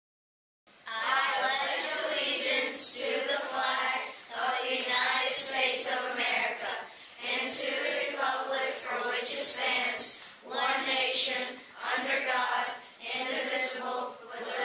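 A group of voices reciting the Pledge of Allegiance in unison, phrase by phrase with short pauses between the phrases, starting about a second in.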